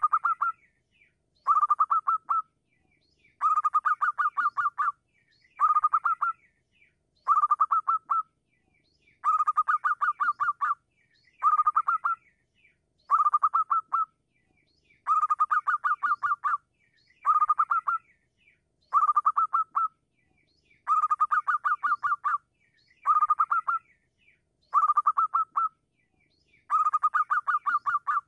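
Zebra dove (perkutut) singing: a steady run of short phrases of rapid staccato cooing notes, about one phrase every two seconds.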